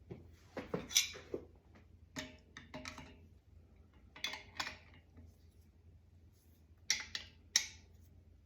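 Metal clinks and scrapes of a wrench working a threaded pipe elbow tight, in four short clusters a second or two apart.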